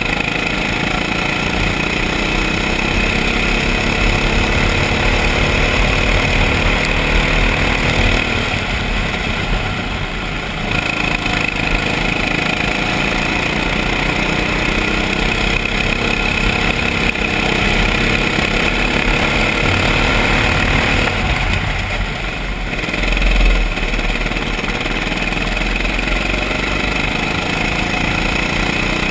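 Go-kart engine running under way, heard on board. The engine note sags twice, about a third of the way in and again about three quarters in, as the throttle is lifted for corners, then picks up again.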